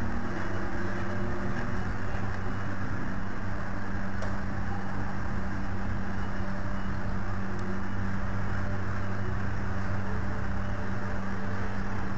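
Steady low hum and noise from the nest camera's outdoor microphone, even throughout, with no falcon calls.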